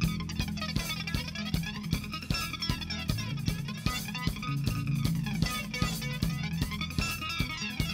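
Rock band playing live, the full band coming in at once: a Sonor drum kit keeping a steady beat under electric guitar and bass guitar, with no singing.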